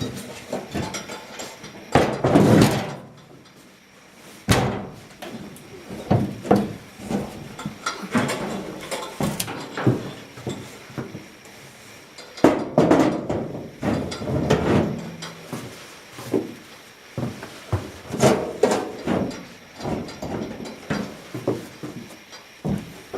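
Diamond-plate truck tool box being lifted and set in place: an irregular series of metal knocks, clunks and scrapes, loudest about two seconds in and again from about twelve to fifteen seconds in.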